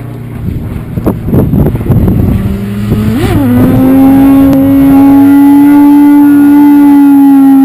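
Yamaha YZF-R1 RN01's inline-four engine through a Mivv GP slip-on exhaust, very loud. It runs unevenly with wind noise at first, blips up and down about three seconds in, then holds a steady high-revving note.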